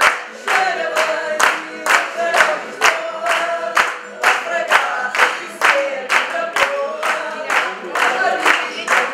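A group of voices singing together with steady rhythmic hand clapping, about two claps a second.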